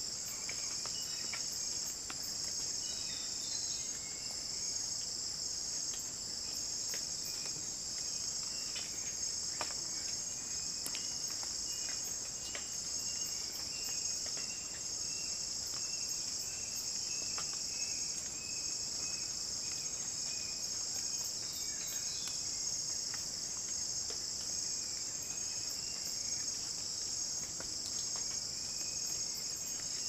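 Steady, high-pitched trilling of insects in a rainforest, pulsing slightly. A few faint thin notes and ticks sound underneath.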